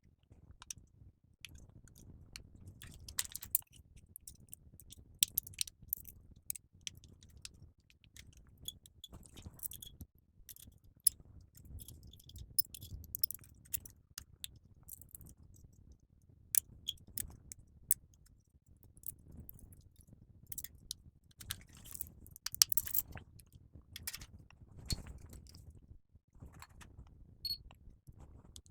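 Irregular small clicks, taps and light scrapes of hand tools and electronic parts being handled while replacement diodes and a MOSFET are fitted into a power supply board.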